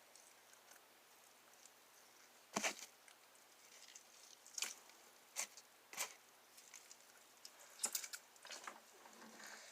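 Homemade slime being squeezed and handled in the hands, giving a scattering of short, sharp wet squelches and pops after a quiet start.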